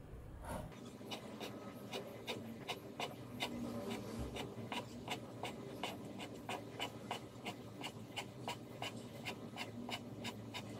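Chinese cleaver chopping on a bamboo cutting board, making quick, evenly spaced cuts through folded tofu skin: a steady run of crisp knocks, about three or four a second, beginning under a second in.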